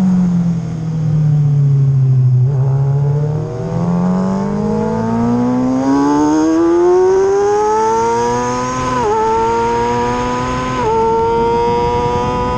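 Motorcycle engine at track speed. The revs sit low through a corner, then climb steadily under hard acceleration, broken by three quick upshifts in the second half.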